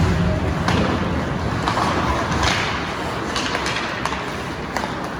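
Ice hockey play in a rink: scattered sharp clacks and scrapes of skates, sticks and puck on the ice over a steady haze of rink noise.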